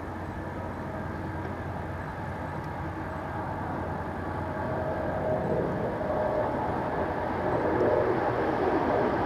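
Two diesel-electric freight locomotives approaching on dynamic braking, holding back a loaded stone train on a downgrade: a steady tonal drone of engines and braking gear that grows louder as they draw near.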